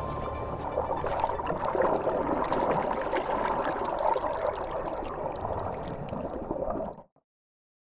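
Underwater sound of rushing, bubbling water with a few short, curving dolphin whistles, from bottlenose dolphins swimming close by; it cuts off suddenly about seven seconds in.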